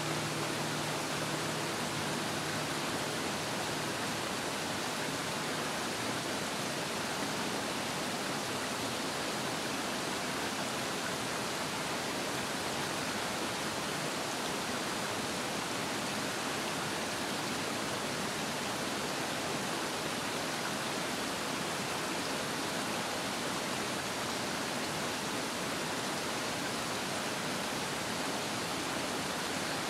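Stream water rushing over rocks: a steady, even rush of running water with no breaks. A faint low hum fades out in the first few seconds.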